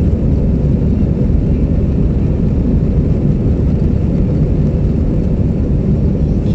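Jet airliner's engines heard from inside the cabin over the wing, a steady loud low rumble as the plane rolls along the runway for takeoff.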